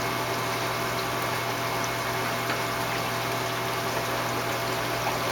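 Aquarium sump running: steady bubbling as air rises from the algae scrubber's sliced airline, with water movement and a steady low hum from the pumps.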